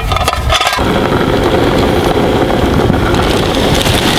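Alcohol stove burning with its jets lit: a steady rushing hiss of the flame that starts about a second in, after a couple of light knocks.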